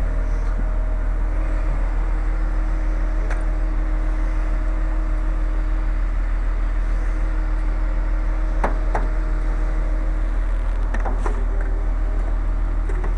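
A large engine running steadily at idle, a constant low drone, with a few short metallic clicks or knocks about a third of the way in, around two-thirds in and again a little later.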